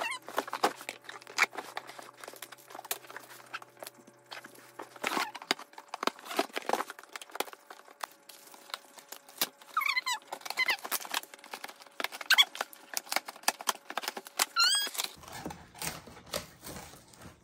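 Cardboard boxes being cut open and handled: scissors snipping packing tape, and cardboard and plastic wrap rustling, scraping and clicking. A small dog gives short, high, squeaky whines midway and again near the end.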